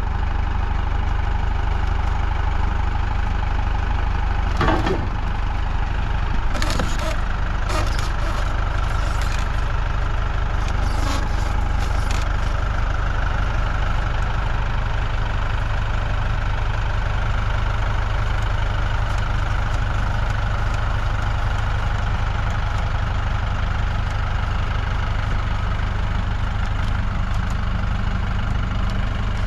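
Vehicle engine idling steadily, with a few short clanks and knocks in the first dozen seconds.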